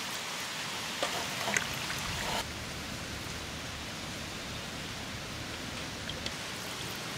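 A steady hiss of background noise, with a few short, sharp wet handling sounds in the first couple of seconds as fish pieces are worked by hand into masala in a steel bowl. The hiss thins suddenly about two and a half seconds in.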